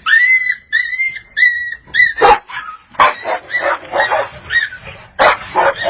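Dogs yelping and whining: a quick run of short, high-pitched cries, several a second at first, then rougher, noisier yelps and barks through the rest.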